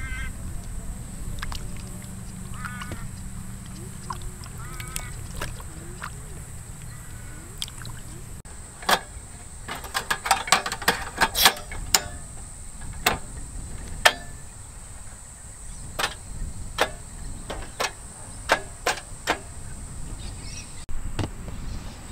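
Ducks quacking now and then over a low steady rumble, then a run of sharp clicks and clacks, loudest near the middle, as a butane canister is fitted into a portable gas camping stove.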